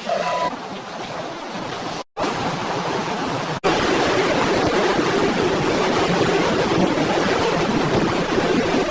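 Loud, steady rushing of fast-flowing floodwater. It drops out briefly twice, about two and three and a half seconds in, where the footage cuts.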